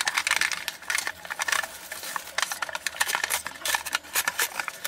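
Instant cup noodle packaging being torn open and peeled by hand: plastic wrap and the paper lid crinkling and rustling in irregular crackles and ticks.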